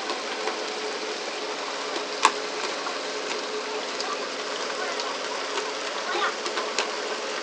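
Steady rush of water and a low engine hum aboard a moving pole-and-line fishing boat, with scattered light knocks and one sharp knock about two seconds in.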